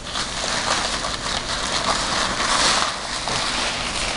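Paper exam gown rustling and crinkling steadily under hands moving over the chest.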